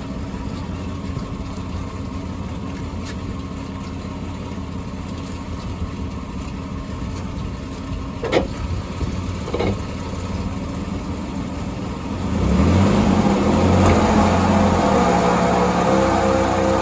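Car on the move with a low droning hum from a bad wheel bearing. About twelve seconds in it gets louder and the hum climbs in pitch as speed picks up. Two brief squeaks are heard midway.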